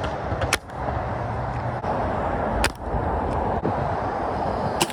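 Air rifle shots: three sharp cracks about two seconds apart, over a steady background rumble.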